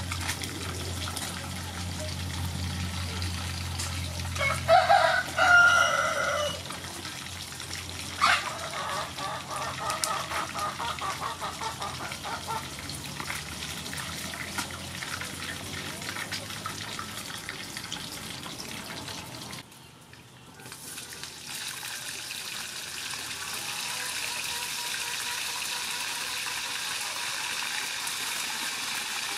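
A rooster crows about five seconds in, and calls again a few seconds later. Later, hot oil in a wok sizzles steadily as a sole fries.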